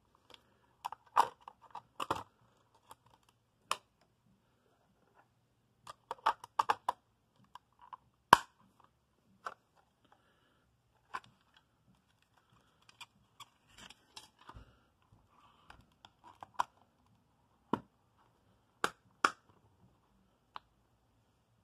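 Scattered sharp plastic clicks and knocks from handling a Sony WM-AF59 Sports Walkman: an AA battery and a cassette fitted into its compartments and its buttons pressed. The clicks come irregularly in small clusters, the loudest about eight seconds in.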